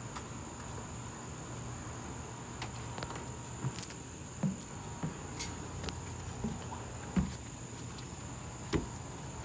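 Steady high insect trill, with a few soft thuds scattered through it.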